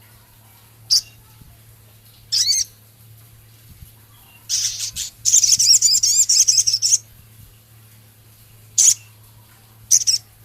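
Male sogon songbird singing short sharp high calls and, about halfway through, a rapid two-second warbling trill, in a song said to be filled with scarlet minivet phrases and rough chattering notes. A faint steady low hum runs underneath.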